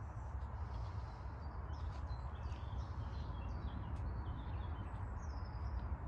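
Small birds chirping and calling in many short notes over a steady low rumble.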